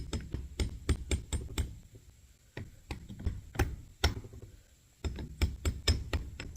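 Quick runs of light hammer taps on a power steering pump's metal parts, knocking a part back into seat in the pump, with two short pauses between runs.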